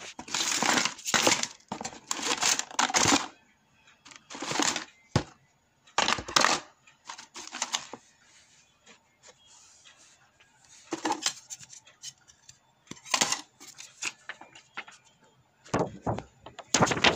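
Scrapped mobile phone parts (plastic frames, circuit boards, thin metal shields) being rummaged through by hand in a cardboard box, clattering and rattling against each other in irregular bursts with short pauses.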